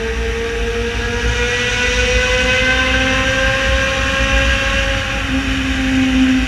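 Yamaha XJ6 Diversion's 600 cc inline-four engine running loud while riding, its exhaust note creeping up in pitch over the first few seconds and then holding steady, with a low rumble underneath.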